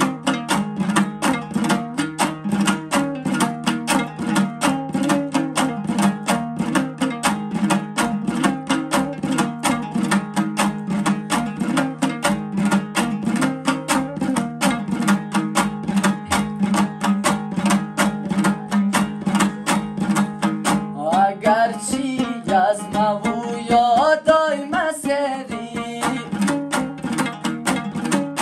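Hazaragi dambura, a two-string long-necked lute, strummed in fast, even strokes over a steady droning string. About three quarters of the way through, a man sings a short melodic phrase over it.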